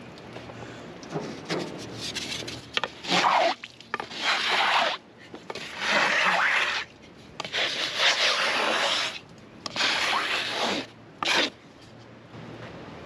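A series of rubbing, scraping strokes across the freshly sawn chestnut slab's wet surface. There are about six strokes, each up to about a second long, with short pauses between them.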